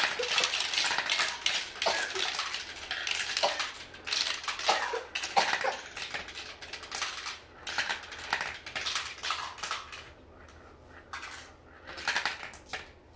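Glass marbles rolling and clattering through a tall plastic marble run, a dense stream of clicks and rattles that thins to a few scattered clicks about ten seconds in.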